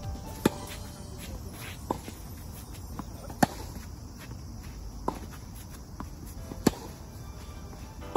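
Tennis rally: racket strings striking the ball five times, about every one and a half seconds, alternating loud near hits with fainter far hits, with softer clicks of the ball bouncing in between.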